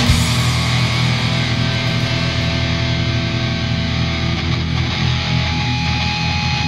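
Rock music with electric guitar chords held over a steady bass and drums.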